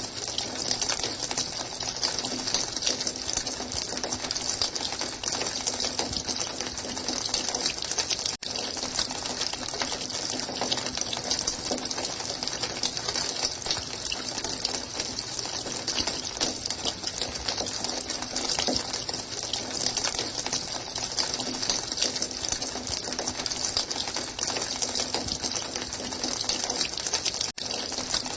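Running water splashing steadily, cutting out for an instant twice: about eight seconds in and near the end.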